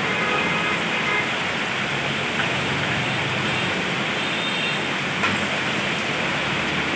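Steady hiss of heavy rain mixed with traffic on a wet main road, with a brief click about five seconds in.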